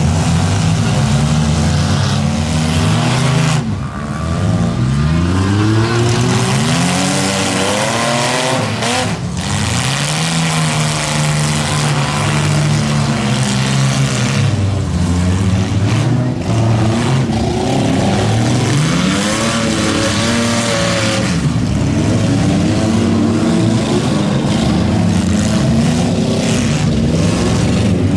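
Several demolition-derby compact cars' engines revving up and down, their pitches rising and falling again and again over one another, loud throughout.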